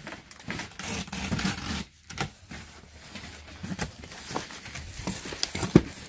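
Box cutter slitting the packing tape on a cardboard carton, and the cardboard flaps being pulled open. Irregular scratching and rustling with scattered clicks, and a sharp knock near the end.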